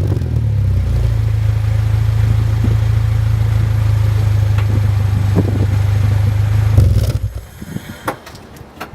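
1992 Honda Civic's four-cylinder engine, running with the exhaust silencer removed, settling from a rev to a steady idle. It cuts off about seven seconds in, leaving a few faint clicks.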